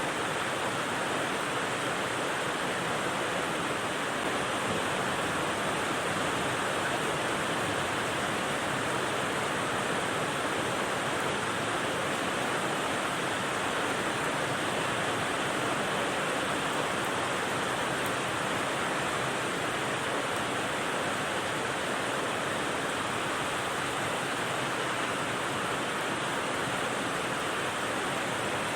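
Steady rain white noise: an even, unbroken hiss with no separate drops, gusts or changes.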